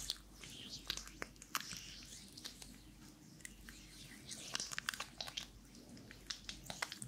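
Palms slick with massage oil rubbed together, making quick, irregular wet clicks and sticky crackles.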